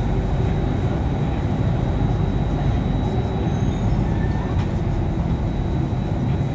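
Loud, steady noise inside a metro train carriage: the air-conditioning blower and the train's low rumble, with a thin steady high whine over it.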